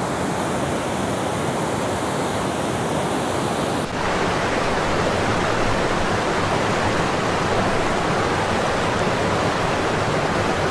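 Steady rushing roar of the River Nile's whitewater rapids. Its tone shifts slightly about four seconds in.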